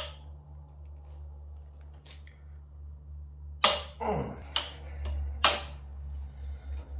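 Hand wrench on the motorcycle's front brake caliper mounting bolts: a few sharp metallic clicks, the loudest about three and a half and five and a half seconds in, over a low steady hum.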